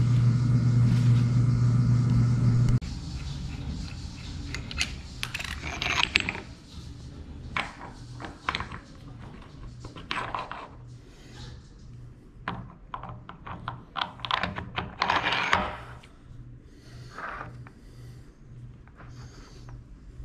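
A steady machine hum that cuts off about three seconds in, followed by scattered metallic clinks and knocks as the steel stud, nut and quick-change tool post are handled and set onto the lathe's compound.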